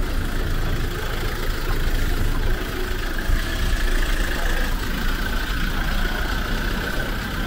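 Street background dominated by a steady low vehicle engine rumble, with a faint steady whine coming in about three seconds in.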